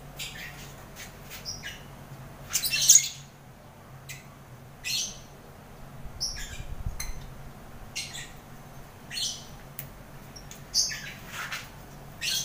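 Caged lovebirds giving short, high-pitched chirps and squawks, one every second or so, with the loudest burst about three seconds in.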